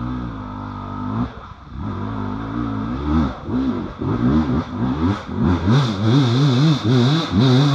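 Off-road vehicle engine revving, its pitch rising and falling in quick repeated blips, growing louder over the last few seconds.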